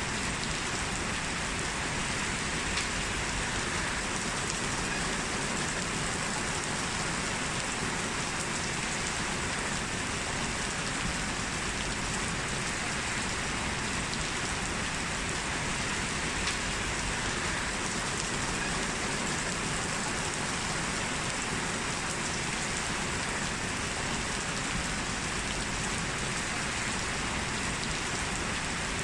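Heavy, steady rain falling on a street, a dense even hiss with faint drop ticks here and there.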